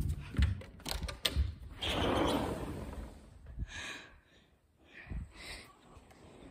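Knocks, bumps and rubbing from a handheld phone being carried and swung around, with a longer rushing noise about two seconds in.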